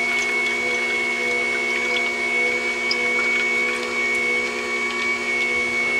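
Horizontal slow masticating juicer running steadily, its motor giving a constant hum with a high whine while the auger crushes cucumber and pineapple, with faint crackles and ticks from the produce being pressed.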